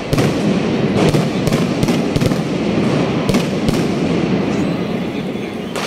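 Fireworks going off: about seven sharp bangs, roughly one a second, over a continuous crackling of bursting stars.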